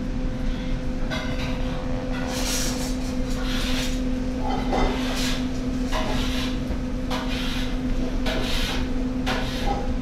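Food frying in a pan, sizzling in irregular hissy surges over a steady low machine hum.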